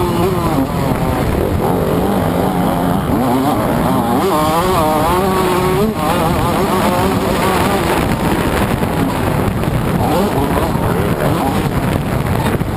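TM MX 125 two-stroke motocross engine at racing speed, heard close up from the bike itself, its pitch climbing and dropping again and again as the rider works the throttle and gears.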